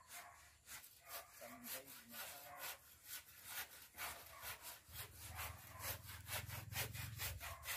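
Handsaw cutting through a wooden board in quick, even back-and-forth strokes.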